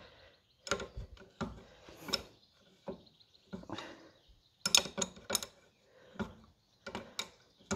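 Irregular clinks and knocks of hand tools on metal engine parts, in short scattered bursts with quiet gaps between, with a louder cluster of clicks near the middle, as the cylinder heads are worked on a Lister three-cylinder diesel.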